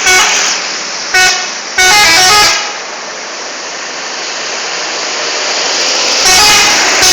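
Bus 'telolet' multi-tone musical air horn sounding in blasts: a short toot at the start, another just after a second in, then a longer stepping melody around two seconds in. A rush of road noise then builds steadily, and the horn sounds again near the end.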